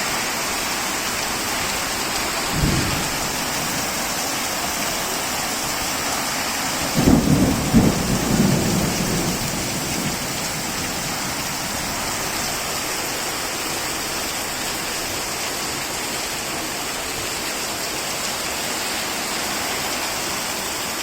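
Heavy rain pouring steadily. There is a brief low rumble about three seconds in and a louder cluster of low rumbles about seven to nine seconds in.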